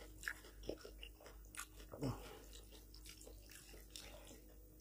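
Faint eating sounds: chewing and fingers working rice and mutton curry on a plate, as a scatter of small irregular clicks with a few short louder noises.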